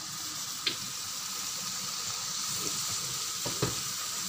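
Broccoli, cauliflower and red chili sizzling steadily in a frying pan. A sharp click comes about a second in and two quick knocks near the end, from the wooden spatula against the pan.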